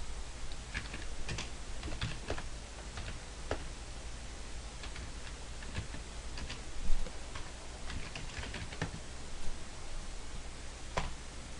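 Typing on a computer keyboard: irregular key clicks in short runs, over a low steady hum.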